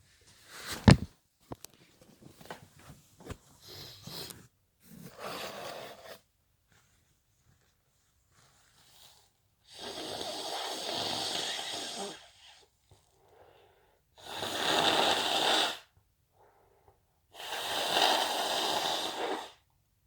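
A person with the sniffles pushing air hard through a stuffy nose: three long, loud, noisy nasal rushes in the second half, after a few shorter ones. About a second in there is a single sharp knock, with faint rustling after it.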